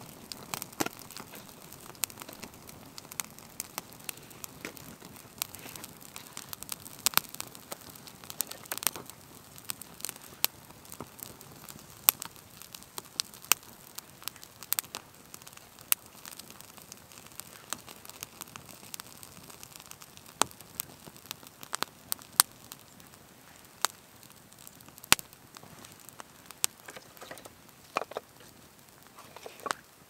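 Small campfire of twigs and split wood crackling, with frequent, irregular sharp pops.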